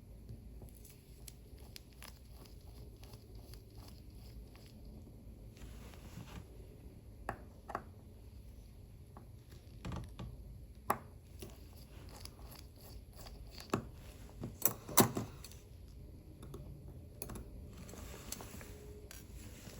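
Small metal watchmaking tools clicking, tapping and scraping against a watch movement and its holder during disassembly. The ticks come irregularly, with a quick, louder cluster about three-quarters of the way through.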